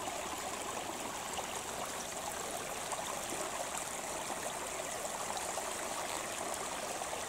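Small shallow creek running over flat stones and leaf litter: a steady, even rush of water.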